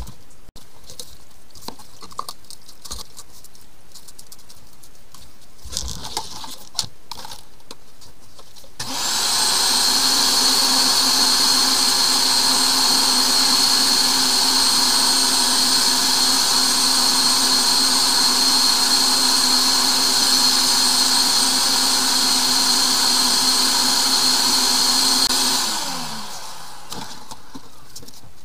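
An electric drain-clearing machine's motor starts about nine seconds in, runs steadily with a high-pitched whine for about seventeen seconds, then winds down. Before it starts there are light clicks and knocks.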